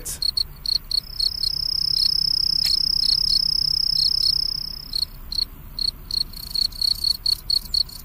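Crickets chirping: short high chirps repeated several times a second, with a second, higher-pitched steady trill held from about a second in until past the middle.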